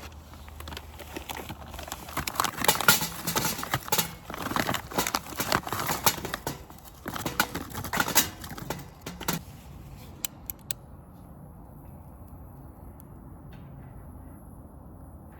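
Lumps of charcoal clattering and clinking against each other and a grill as they are tipped and piled in, a dense run of knocks lasting several seconds that ends with a few last clicks.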